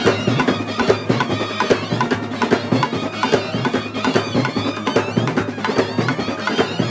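Brass band music: clarinets and brass carry a wavering melody over fast, dense drumming on stick-played side drums and a bass drum.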